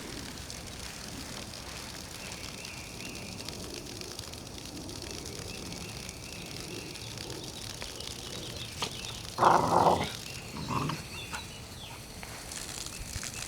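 A 16-week-old puppy barking: one loud bark about two-thirds of the way in and a shorter one a second later, over a steady background hiss.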